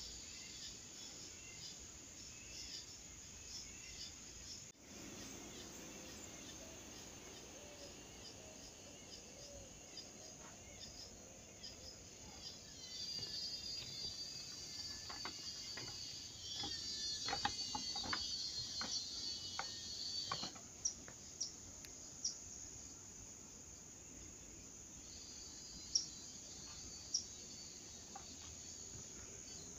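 Faint outdoor ambience of small birds chirping and twittering. The chatter thickens into a dense stretch around the middle, then gives way to a few single sharp chirps near the end.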